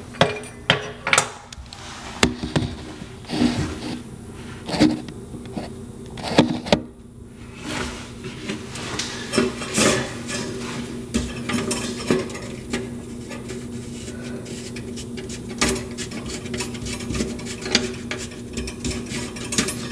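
Hands threading the nut up onto a bathroom sink pop-up drain body and handling the drain parts: irregular clicks, knocks and rubbing of the parts.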